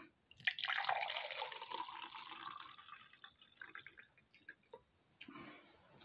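Red wine spritzer (fröccs) poured into a glass. A steady pour of about two and a half seconds tails off into a few drips, with a short second trickle near the end.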